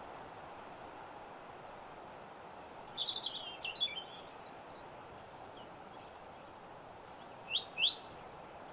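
Small songbirds chirping: a quick burst of high chirps about three seconds in and two sharp chirps near the end, over a steady background hiss.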